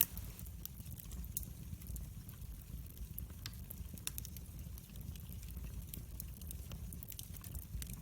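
Wood fire burning in a fireplace: a steady low rumble of flame with many scattered sharp crackles and pops, the loudest pop right at the start.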